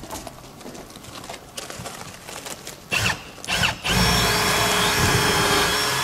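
Cordless drill working in a wooden railroad tie: two short trigger blips about three seconds in, then a steady whine for about two and a half seconds before it stops.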